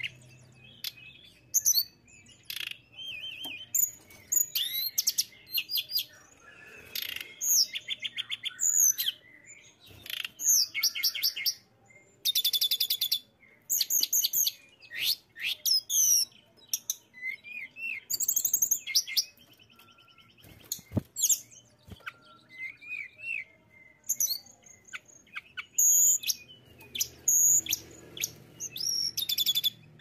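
Hill blue flycatcher (tledekan gunung) singing a varied, continuous song of high clear whistles, chirps and fast trills, phrase after phrase with short pauses between.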